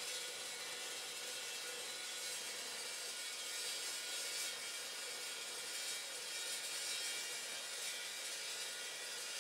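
Evolution Evosaw 355 chop saw running, its 355 mm toothed steel-cutting blade feeding slowly down through a 100 mm by 20 mm steel bar. The sound is a steady whir with a high hiss, neither rising nor falling.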